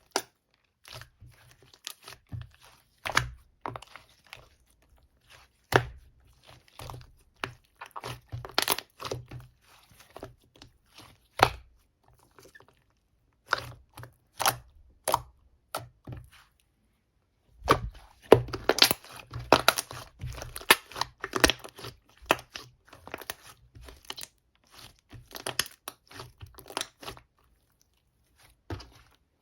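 Hands kneading and pressing clay slime mixed with soothing gel, making irregular sticky clicks, pops and crackles, with a dense run of crackling a little past the middle.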